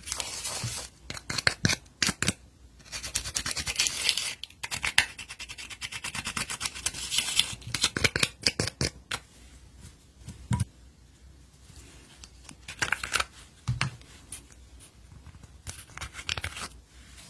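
Glitter slime being mixed and squished by hand, giving clusters of quick sticky crackling clicks with short pauses between, sparser in the second half.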